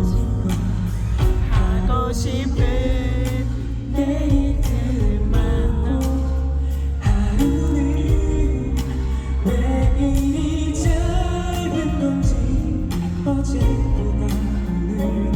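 Live pop ballad played loud through a concert sound system: a band with steady drums and deep bass, and a voice singing a wavering melody over it.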